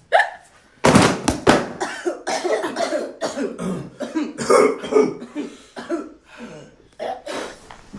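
A person's voice in a long run of rapid, breathy non-speech bursts, coughing-like and without words, after one sharp burst at the start; the run thins out near the end.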